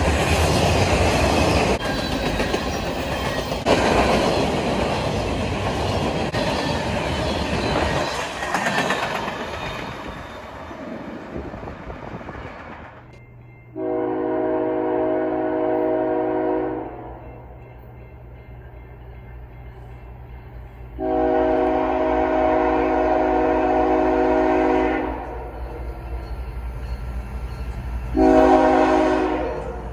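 Freight train cars rumbling and clattering past close by, fading away over about ten seconds. Then an approaching BNSF diesel locomotive sounds its multi-chime air horn, two long blasts and a short one, the opening of a grade-crossing signal, over the low sound of its engine.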